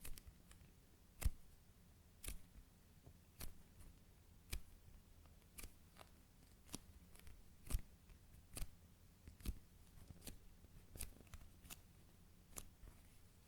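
Slow-rising foam chocolate-bar squishy toy being squeezed and handled by fingers. It gives a dozen or so faint, sharp clicks and ticks, roughly one a second, with softer ticks between them.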